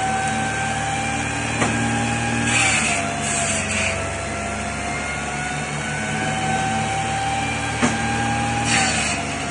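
Homemade eight-chamber drum saw (revolver firewood saw) running steadily and cutting wood twice: each time a sharp knock, then about a second later a hissing cut as the machine's pitch sags under load.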